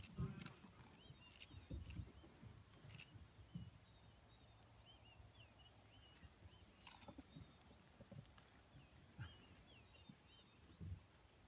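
Near silence in dry bush, with faint, short bird chirps repeating in small groups and a few soft thumps.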